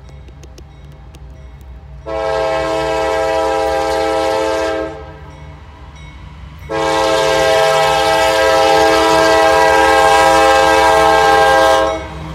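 CSX diesel locomotive's air horn sounding two long blasts, each a chord of several tones: the first about two seconds in, lasting about three seconds, the second starting near seven seconds in and held about five seconds. A low diesel engine rumble runs beneath as the locomotive approaches.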